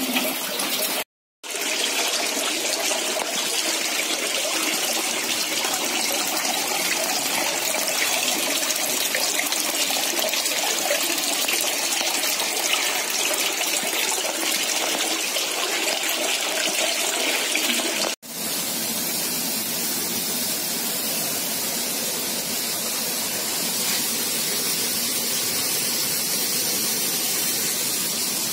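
Water running and splashing steadily from supply pipes into trout hatchery tanks, a continuous rushing hiss. It drops out briefly about a second in and changes slightly at a cut about eighteen seconds in.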